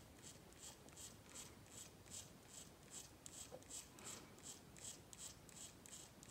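Faint, even ticking about two and a half times a second from the open metal gear train of a Savox SV1254MG servo running under power, its freshly replaced brass and steel gears turning slowly toward the end limit.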